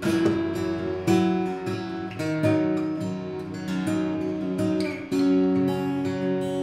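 Intro music: acoustic guitar strumming chords, a new strum about once a second.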